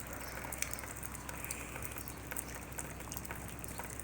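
Steady rain with many scattered drops pattering.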